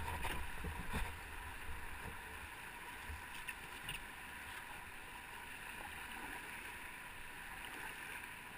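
Rushing river water around a canoe running small rapids, a steady hiss. A low rumble and a couple of sharp knocks in the first second.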